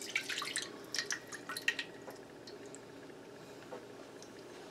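Orange juice mixture poured from a bowl into a wok, splashing and crackling for about the first two seconds, then only a faint steady hiss as it heats.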